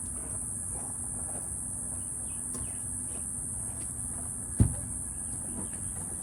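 Steady high-pitched insect buzz with outdoor background noise, broken by a single short knock about four and a half seconds in.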